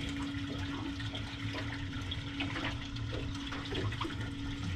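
Water washing and sloshing around a boat's hull at sea, over a constant low hum, with a few faint small clicks.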